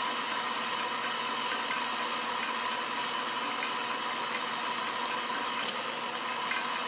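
Modified bench grinder motor running steadily, spinning a permanent magnet motor through pulleys so that it works as a generator: an even mechanical whir with a constant tone.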